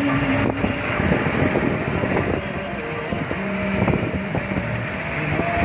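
Off-road vehicle's engine running as it lurches over a rocky, stony track, with frequent knocks and rattles from the body.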